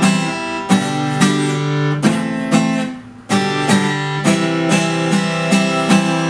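Acoustic guitar strummed in changing chords, about two strums a second with a brief break about three seconds in. The guitar has just been tuned to standard E tuning.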